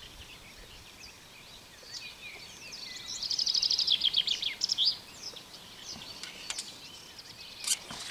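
Songbirds singing, one of them in a loud, rapid run of repeated notes about three seconds in. Near the end comes a short sharp splash as the float and line are struck out of the water.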